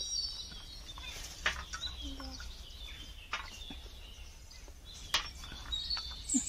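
Birds calling in the background, thin high-pitched calls, with a few short sharp clicks and rustles as the flour and its plastic bag are handled over a steel plate.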